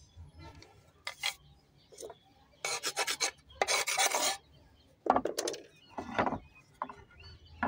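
A metal blade scraping across the surface of a pink shale-stone slab in several strokes, the two longest about three and four seconds in. After that come a few shorter knocks as the stone slabs are handled.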